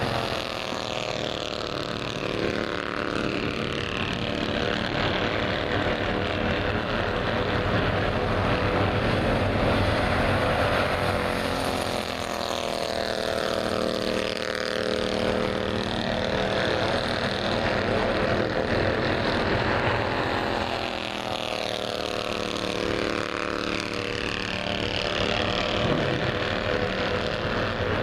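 Bandolero race car's single-cylinder engine running under load on an oval. Its pitch drops off and climbs back several times as it lifts for the turns and accelerates down the straights.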